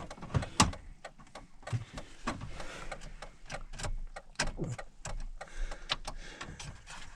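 Irregular clicks, taps and knocks of a plastic dash panel being worked back and forth into place, several a second, with a sharper knock about half a second in.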